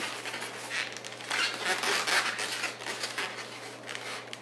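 Latex twisting balloons being handled and twisted, the rubber rubbing in an irregular scratchy rustle that is loudest about a second and a half to two seconds in.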